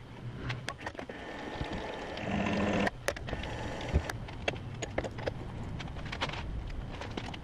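Metal parts and hand tools being handled at a small lathe's chuck: a run of sharp clicks and light knocks as parts are fitted and tightened. A brief steady hum sounds around two seconds in and cuts off suddenly.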